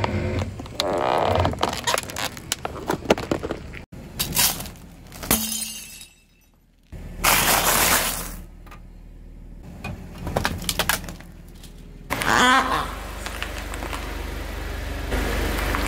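Car tyre rolling over and crushing things one after another. First a plastic detergent-pod tub cracks and crackles under the weight, with many sharp snaps. After a short quiet gap, something crumbly gives a loud burst of crunching. Near the end a steady low rumble of the slowly rolling car comes in.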